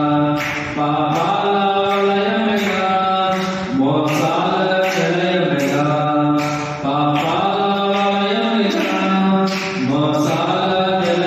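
A man singing a Christian devotional song into a microphone, holding long notes that glide between pitches over a steady beat of about two a second.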